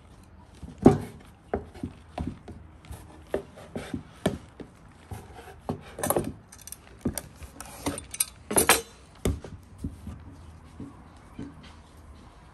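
Kitchen scissors snipping a roll of dough into pieces on a wooden board: a series of irregular snips and knocks on the wood, thinning out near the end.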